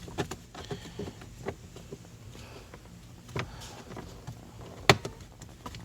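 Scattered plastic clicks and scrapes as the cabin air filter is pulled out of its housing behind the glove box, with one sharp click near the end, over a faint steady hum.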